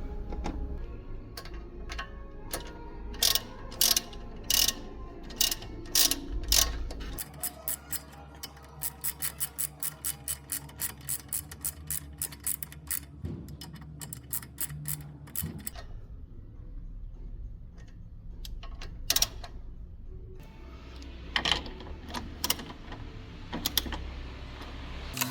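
Hand ratchet wrench being worked on the front shock absorber fastenings, clicking in sharp strokes, with a steady run of about two to three clicks a second in the middle.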